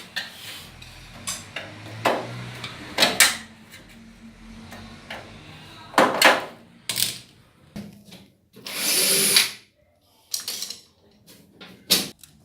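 Power drill or screwdriver running in short spells, the longest about a second near the end, backing out screws on a washer-dryer's panel, among knocks and rattles of metal parts being handled.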